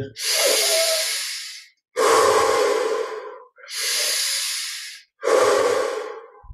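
A man taking slow, deep breaths, in through the nose and out through the mouth. There are four long, audible breaths, each lasting one to two seconds, with short pauses between them.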